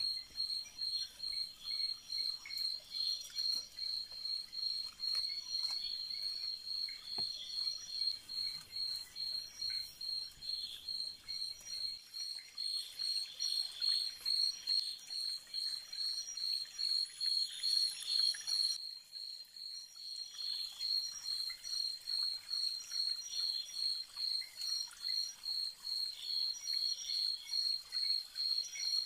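Night chorus of frogs and insects: a high, steady chirping that pulses about two to three times a second, with other frog calls beneath it.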